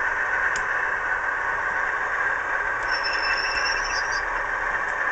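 Model Class 37 diesel locomotives' DCC sound decoders playing a steady engine thrash through their small on-board speakers while the pair moves along the track. A brief high squeal comes in about three seconds in.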